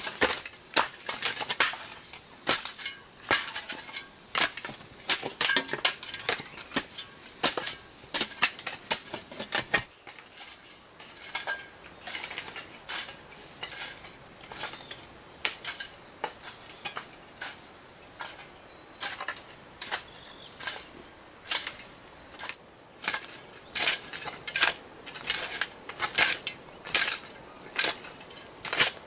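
Rapid, irregular sharp clinks and knocks of hard objects striking, several a second.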